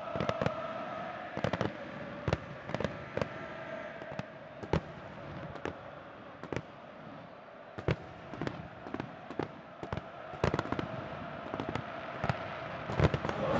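Fireworks going off: many sharp bangs and cracks at irregular intervals, some in quick clusters, over a faint steady background.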